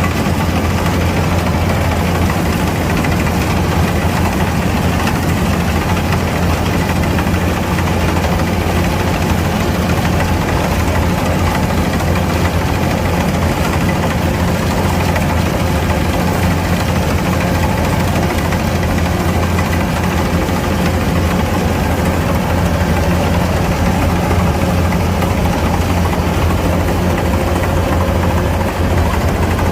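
Kubota DC-105X combine harvester's engine running steadily at a constant speed, a continuous deep hum with no change in pitch.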